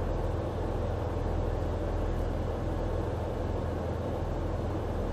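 Ship's engines and machinery running, a steady low drone.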